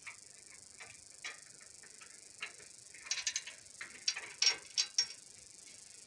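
Ratchet wrench clicking in short runs as a bolt or nut is turned, the clicks coming thickest in the middle of the stretch.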